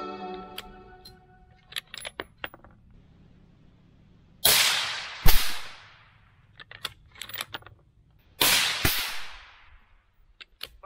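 Remington 700 SPS Tactical bolt-action rifle in .223 being fired: loud, sharp reports that come in two close pairs about four seconds apart, each fading out over about a second. Light metallic clicks come between them, typical of the bolt being worked.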